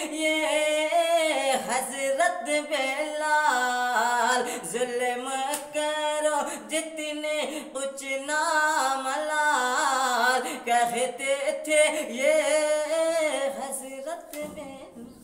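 A man singing a naat, an Urdu devotional poem in praise of the Prophet, solo and unaccompanied, in long held, wavering notes with short breaths between phrases.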